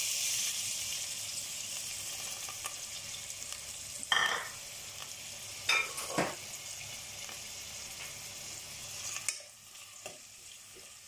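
Sliced onions and curry leaves sizzling in hot coconut oil in a nonstick pot, loudest at the start and slowly dying down. A spoon stirs them in the pot a few times, about four to six seconds in.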